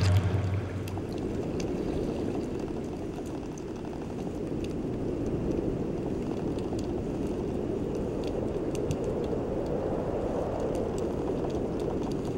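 Underwater ambience heard through a camera housing: a steady low rush of water with faint scattered clicks.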